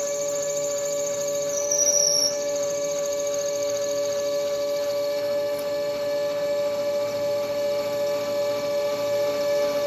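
Metal lathe running while a parting (cut-off) tool parts off aluminum bar stock: a steady whining tone, with a thin high squeal above it that shifts pitch about two seconds in.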